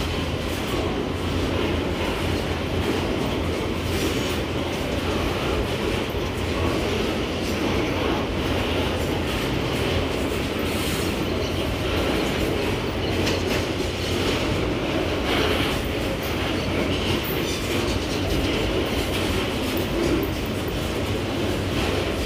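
Wagons of a long pulp freight train rolling steadily past at close range: an even rumble of steel wheels on the rails, with scattered light clicks.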